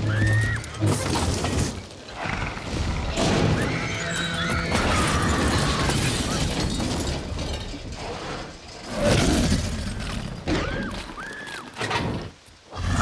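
Film sound of a Tyrannosaurus attacking a car in the rain: crashing, glass shattering and metal crunching as the car is pushed over. High screams come in short bursts at the start, around four seconds in and again near the end.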